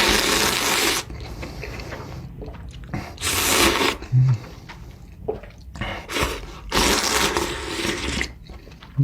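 Spicy ramen noodles slurped in long pulls, one ending about a second in, another around three seconds in and a third near the end, with wet chewing between them.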